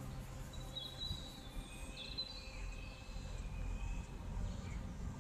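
A bird gives a few short whistled chirps, about one to three seconds in, over a low, steady outdoor background rumble.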